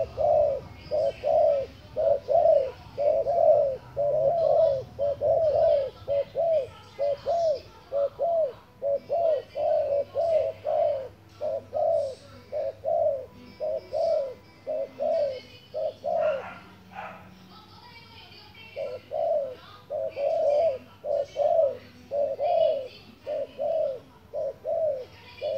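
Spotted dove cooing, a rapid run of short repeated coos about two a second, broken by a pause of about a second roughly two-thirds of the way through.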